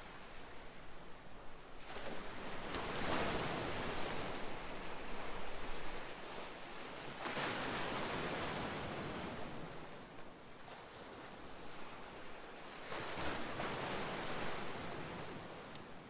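Ocean waves washing in, three swells of surf noise a few seconds apart, each rising and then easing off.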